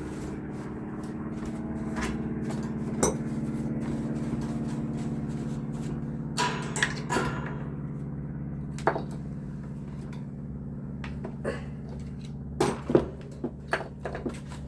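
Scattered metal clinks and knocks of tools and fan parts being handled during a fan teardown, with a cluster of sharper knocks near the end, over a steady low hum.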